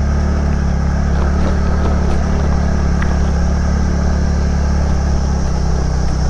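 TVS NTORQ scooter's single-cylinder engine running steadily while being ridden, its pitch holding level, with road and wind noise over it.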